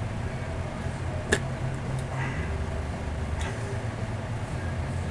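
Quiet, steady low hum with a single sharp click a little over a second in and a fainter tick about a second later.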